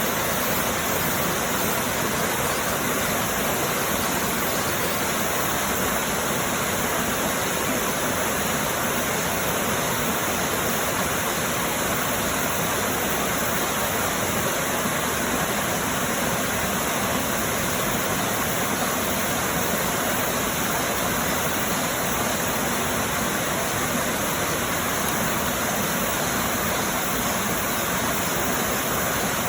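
Mountain valley stream rushing over rocks: a loud, steady wash of water noise that does not change.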